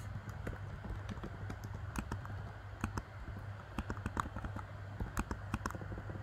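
Typing on a computer keyboard: irregular key clicks at an uneven pace, over a steady low hum.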